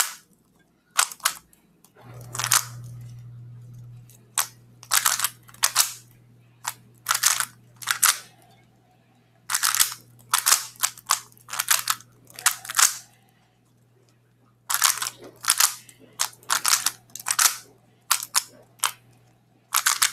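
A 3x3 speed cube being turned fast in quick bursts of clacking turns, with short pauses between the bursts and a longer pause about two-thirds of the way through. The cube has just been lubricated with GAN Magic Lube.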